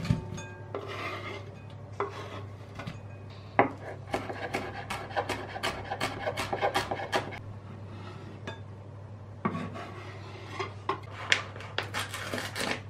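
A kitchen knife scrapes sliced onion off a wooden chopping board into a glass bowl. From about four seconds in comes a fast run of knife chops on the board as coriander is chopped. Near the end the foil spice pouch crinkles, over a low steady hum.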